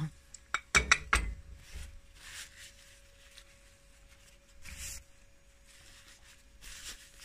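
A ceramic bowl and metal spoons clink and knock on the table several times in the first second or so, then a paper tissue rustles softly a few times as it is handled.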